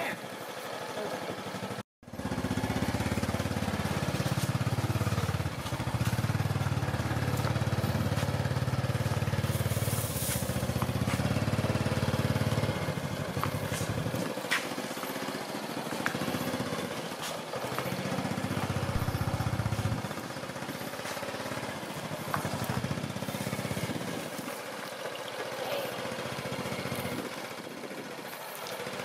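Honda Dream motorcycle's small four-stroke engine running as it rides slowly, its low rumble strongest for the first dozen seconds and then coming and going. A brief dropout about two seconds in.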